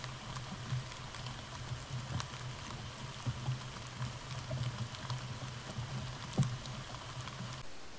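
Trail camera's own recording: a steady low electrical hum from the camera with scattered faint crackles and ticks, one sharper tick about six seconds in, as an animal moves through dry leaf litter close to the camera. The hum cuts off shortly before the end.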